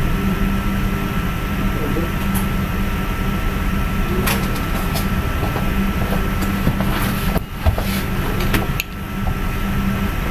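Steady background hum and hiss with a thin high tone, with a few sharp clicks about halfway through and near the end.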